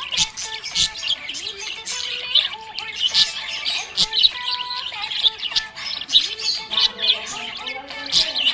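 Small pet parrots chirping and chattering in rapid, continuous high twitters and trills, with a melody of steady notes underneath.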